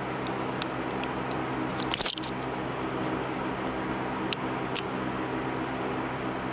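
A steady low electrical hum, with a few faint scattered clicks and a brief rustling click about two seconds in: small handling noises over the room's hum.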